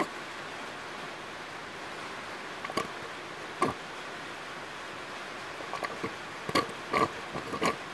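Plastic bottle of engine oil squeezed into a small blower engine's oil filler hole: a handful of short gurgles and squelches as the oil goes in, coming more often near the end, over a steady hiss.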